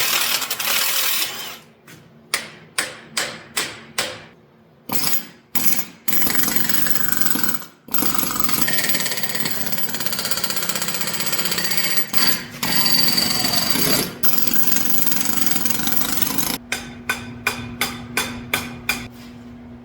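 Metal hammer blows, several sharp ringing strikes in quick runs, alternating with long stretches of continuous rapid tool rattling: pins being driven out while an excavator's stick and H-link joint is taken apart.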